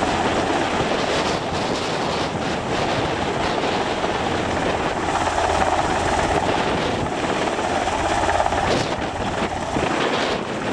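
Sikorsky S-92 helicopter hovering low and settling toward the ground, its main rotor and twin turboshaft engines running with a steady whine and rumble. The whine fades about nine seconds in.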